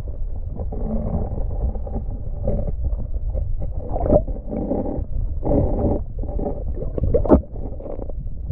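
Water sloshing and churning, heard muffled through a camera submerged in shallow water, as a hand and a rubber fishing net move about to release a trout. A sharp knock near the end.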